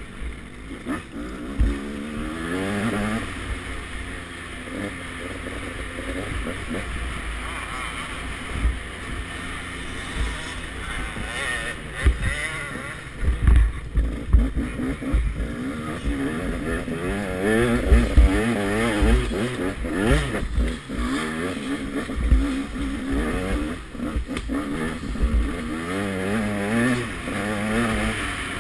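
KTM 200 XC-W single-cylinder two-stroke dirt bike engine revving up and down as it is ridden hard over a rough dirt track. Repeated dull thumps come through as the bike hits bumps.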